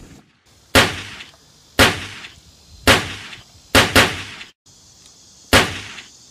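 Six gunshots, each with a short echoing tail: roughly one a second, with two fired in quick succession about four seconds in.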